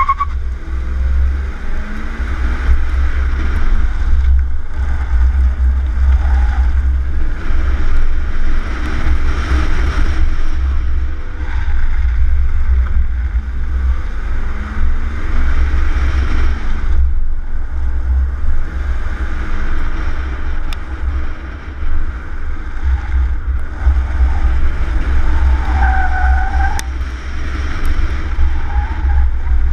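2001 Cadillac Seville's Northstar V8 revving up and easing off through an autocross course of cones, over a heavy low rumble of wind on an outside-mounted microphone. Near the end there is a brief squeal from the touring tires in a corner.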